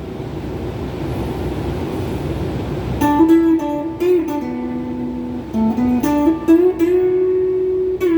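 Electric guitar, a strat-style guitar played through a phaser and a Klon-clone overdrive pedal into a Crate GX30M amp. A sustained, washy chord rings for about three seconds, then a picked single-note melody with a few bent notes.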